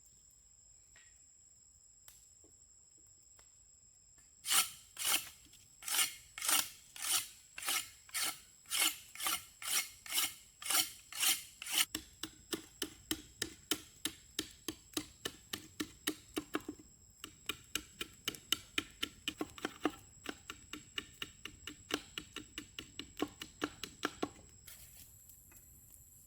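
Hand rasping or filing strokes on a workpiece. A run of about a dozen strong, even strokes, under two a second, gives way about halfway through to quicker, lighter strokes, about three a second, that stop shortly before the end.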